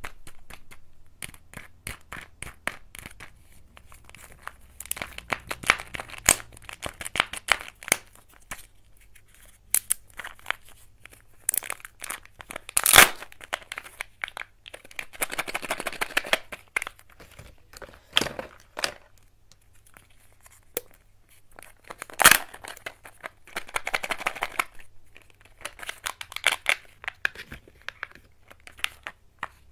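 Plastic Kinder Joy egg shells clicking and knocking as they are handled, with several stretches of crinkling and tearing as the foil seal is peeled off an egg half. Two sharp clacks, about halfway through and about three quarters of the way in, are the loudest sounds.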